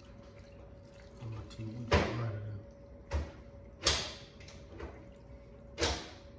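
Broth ladled onto noodles in a glass bowl, then a bare hand squeezing and mixing the soaked noodles: a handful of short wet splats and squelches, the loudest about two seconds in.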